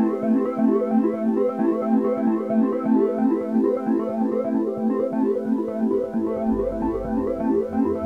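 Background music: quick, repeating synthesizer keyboard notes, with a low pulsing bass coming in about six seconds in.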